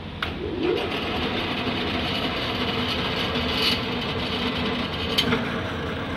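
Clausing 5914 metal lathe's spindle engaged with the clutch lever: a click, then the headstock starts and runs with a steady mechanical whir. A couple of short clicks come later.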